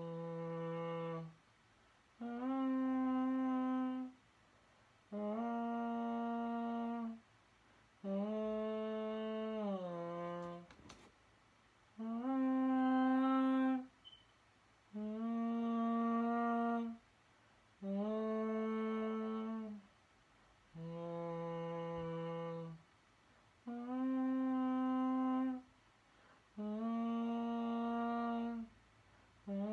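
A melody of long held notes, about ten of them, each lasting roughly two seconds with a short gap between, a few sliding down a step near their end.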